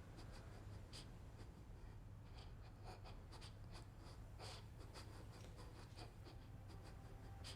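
Near silence: quiet room tone with faint, irregular soft ticks and rustles.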